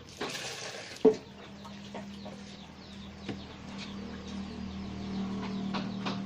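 A brief rush like running water, a sharp knock about a second in, then a steady low hum that grows slightly louder toward the end.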